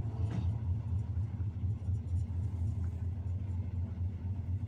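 Steady low rumble of a moving freight train heard from on board: a rolling-highway train carrying lorries on flat wagons.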